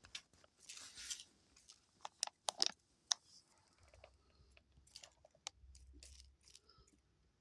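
Pet dove pecking through a dish of birdseed and flicking it out: faint, irregular clicks and ticks of beak on seed and seeds landing, a small cluster of sharper ones about two to three seconds in.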